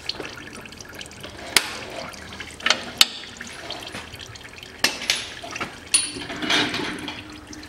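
Automatic transmission fluid trickling in a thin stream from the Aisin 09D gearbox's level tube into a drain container. A few sharp clicks come through it.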